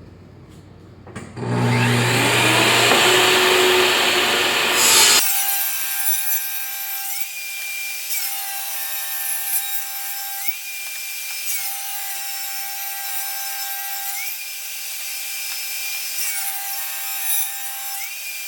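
Power saw starting up about a second in, then cutting white oak boards in repeated passes, its whine dipping in pitch and recovering about every three seconds.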